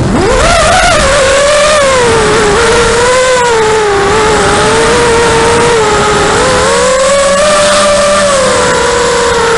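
Whine of a 5-inch FPV racing quadcopter's four brushless motors (Xnova 2204 2300kv) spinning HQ 5040 tri-blade propellers, heard from the onboard camera. The pitch climbs sharply at the start as the throttle comes back on out of a dive, then wavers up and down with the throttle.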